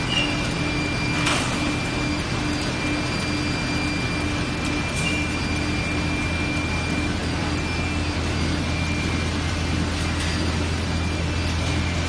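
Small toilet roll paper making machine running steadily: a continuous mechanical noise with a low hum and a thin high whine, with a single sharp knock about a second in.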